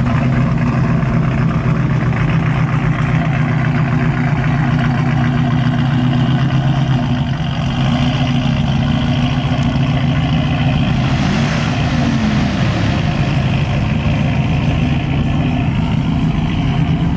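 A pickup truck's engine running steadily, with the pitch dipping briefly about two-thirds of the way through.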